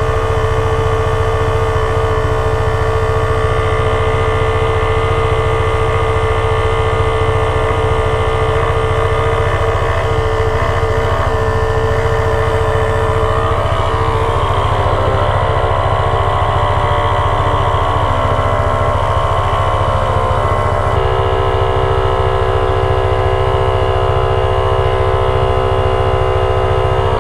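Black Cat Liliput portable 12 V tyre inflator's electric air compressor running steadily, a loud buzzing drone, as it pumps a motorcycle's front tyre up toward 32 PSI. Its pitch drops slightly about two-thirds of the way through.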